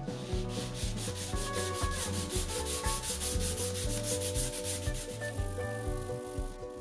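Oak cutting board edge being hand-sanded with sandpaper, quick back-and-forth scratchy strokes several times a second, tailing off near the end. Light background music plays underneath.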